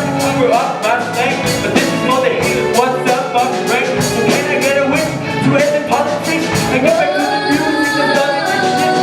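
A live pop song performance: a singer over a band, with a steady drum beat.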